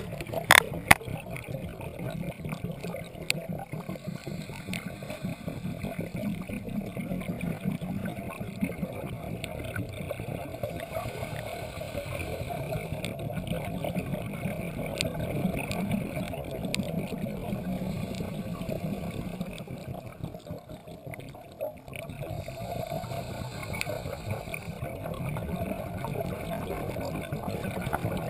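Underwater noise picked up by the camera: a steady murky rushing that swells and eases slightly. A few sharp clicks about half a second to a second in, as the camera is jolted.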